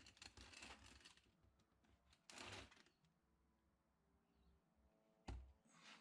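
Near silence with faint scratchy clicks, a brief rustle about halfway through, and a single sharp knock near the end.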